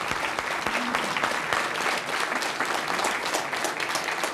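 Studio audience applauding, many people clapping at once in a steady, even wash of claps.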